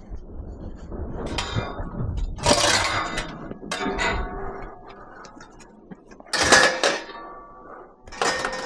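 Scrap metal clanking as pieces are handled and loaded, a series of separate knocks that ring briefly after each strike.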